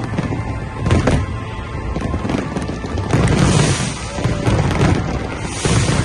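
Fireworks going off: sharp booms near the start and about a second in, then bursts of crackling hiss, with music playing underneath.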